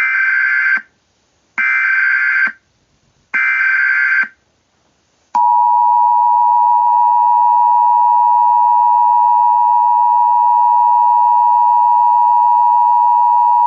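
Emergency Alert System alert tones: three short bursts of buzzy digital SAME header data, each about a second long with a second's gap between them, then the EAS attention signal, a steady two-tone beep of 853 and 960 Hz held for about eight seconds that cuts off abruptly.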